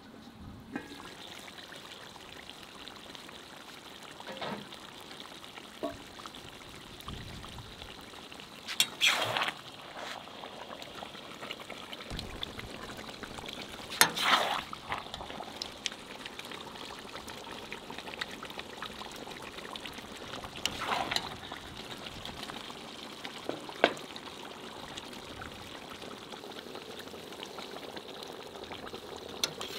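Stew being ladled out of a pot: sauce trickling and pouring, while a metal skimmer knocks and scrapes against the pot about five times.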